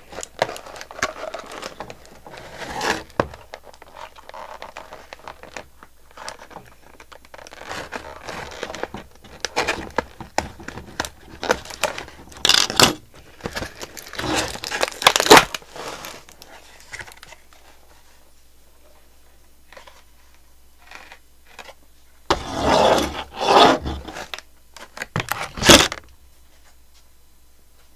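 Plastic toy packaging being handled: a doll worked out of its hard pink plastic shell, with repeated scraping and crinkling rustles. The handling pauses for a few seconds about two-thirds of the way through, then a few more loud rustles come near the end.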